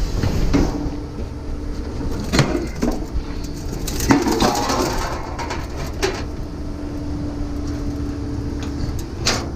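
Scrap metal being unloaded by hand: a series of clanks, knocks and clatters as pieces are dragged and dropped, over a steady low hum.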